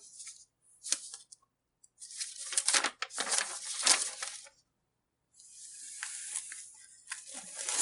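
Paper rustling and crinkling in several bursts as the pages of a printed invoice are handled and turned, with a few sharp clicks about a second in.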